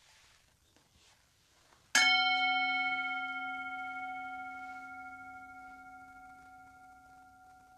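Metal singing bowl struck once about two seconds in, then ringing as a low hum with several higher tones above it; the highest tones die away first and the lower ones fade slowly and are still sounding at the end. It is rung to open a time of prayer.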